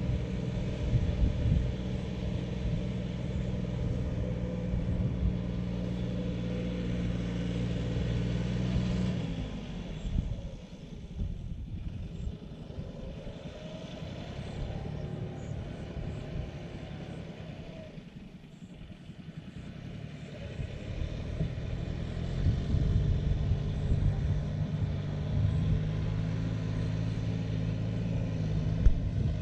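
John Deere tractor's diesel engine running steadily while plowing. It fades to a faint hum about ten seconds in as the tractor draws away, then grows loud again from about twenty-two seconds in as it comes back.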